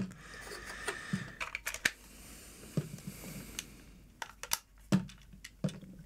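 Scattered light clicks and taps, about half a dozen, of a plastic toy's battery compartment being handled and its cover pressed back into place.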